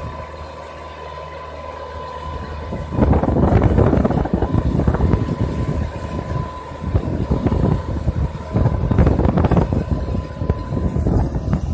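Diesel engine of a 40 hp four-wheel-drive tractor running steadily under load as it pulls a disc plough through the soil. From about three seconds in, a louder, uneven gusting rumble of wind on the microphone covers it.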